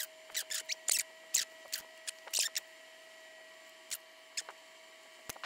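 Light clicks and taps of hands handling soldering tools at a workbench, thickest in the first two and a half seconds, then only a few. A faint steady whine runs underneath.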